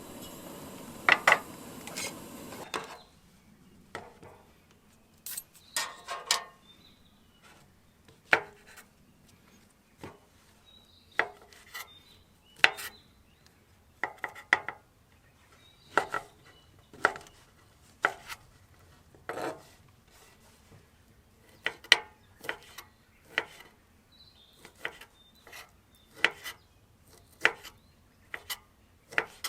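Chopping: a blade striking down onto wood roughly once a second, sometimes twice in quick succession, after a few seconds of rustling at the start.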